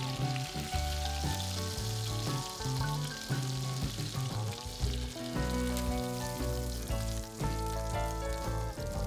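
Chicken breasts sizzling in a pan of foaming butter as they are turned with tongs, the sizzle strongest in the first half. Background music plays throughout.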